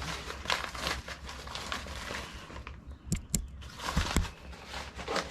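Rustling and crinkling as packaged items are handled, with four sharp knocks between about three and four seconds in.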